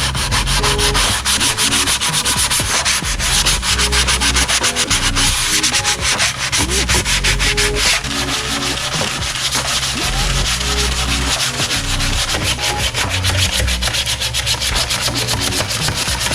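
Sandpaper rubbed by hand over a wooden tabletop in rapid back-and-forth strokes, scraping off the old finish.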